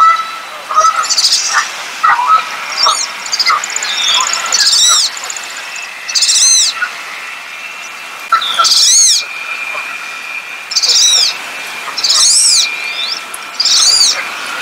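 Wood duck calling: a series of about six loud, high squealing whistles, each about half a second long, rising then falling in pitch and repeated every couple of seconds, with softer short chirps in the first few seconds.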